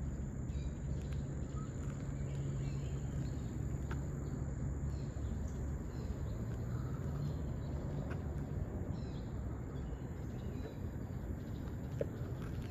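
Insects calling in a steady high drone, with scattered faint chirps, over a low steady rumble and a few faint clicks.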